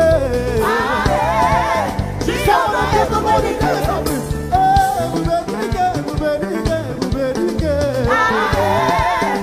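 Upbeat gospel praise music: singing voices over a band with a steady drum and bass beat.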